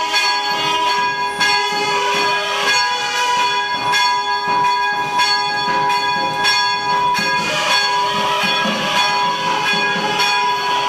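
Hindu temple bells ringing continuously in rapid, repeated strikes, with several ringing tones held on over one another.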